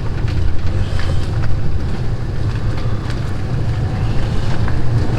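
Wind buffeting the microphone on a moving open electric buggy: a steady low rumble of wind and ride noise, with scattered light clicks and rattles.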